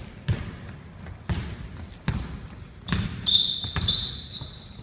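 A basketball dribbled on a hardwood gym floor, about five bounces roughly a second apart, with high sneaker squeaks about three seconds in.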